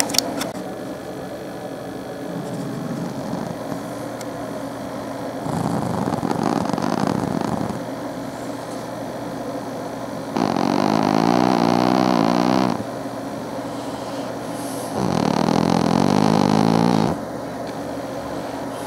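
Domestic cat snoring in its sleep: three long snores, each about two seconds and roughly five seconds apart, the last two the loudest, with quieter breathing between. A sharp click right at the start.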